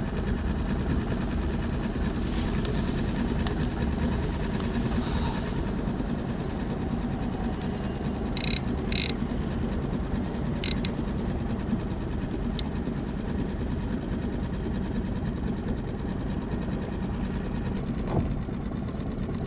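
Small outboard motor of a solo fishing skiff running steadily at low speed, a continuous low hum. Two short hissing bursts come about halfway through.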